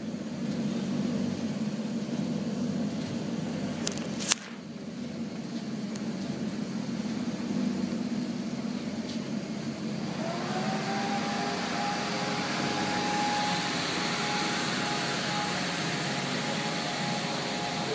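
Maserati GranTurismo's naturally aspirated 4.7-litre V8 running at low revs as the car manoeuvres slowly in an underground car park. There is one sharp click about four seconds in, and a steadier, higher drone joins about ten seconds in.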